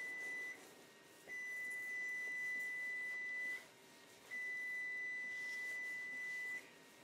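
Stove timer alarm sounding, which signals that the set baking time has run out. It gives long, steady, high-pitched beeps of about two seconds each with short gaps between: one ends about half a second in, and two more follow.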